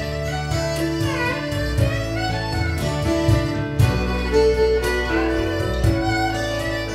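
Viola playing a bowed melody with slides between notes about a second in, over a low bass line, guitar and light percussion.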